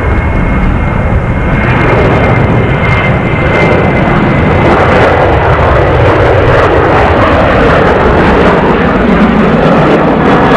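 Boeing 737-800's twin CFM56-7B turbofan engines at takeoff thrust, a loud, steady jet noise as the airliner rolls, lifts off and climbs out. A thin high whine sounds over it in the first few seconds, and the noise swells slightly about two seconds in.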